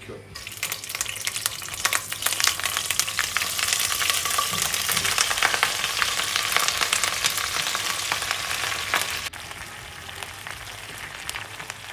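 Turnip greens dropped into hot oil with garlic in a frying pan, sizzling with a dense crackle. The sizzle drops to a quieter steady hiss about nine seconds in.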